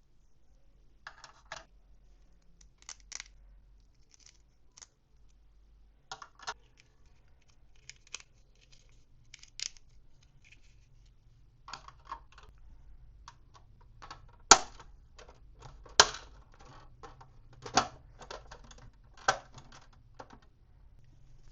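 Toy packaging being handled and opened: scattered crinkles, rustles and small plastic taps, getting busier in the second half with four sharp clicks, the loudest a little after the middle.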